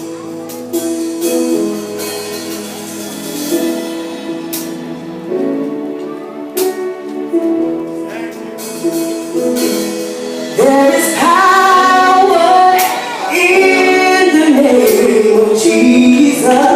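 Live gospel music: sustained keyboard chords with a few cymbal-like strikes. About ten seconds in, a lead singer's voice comes in loudly, sliding and ornamenting its notes over the chords.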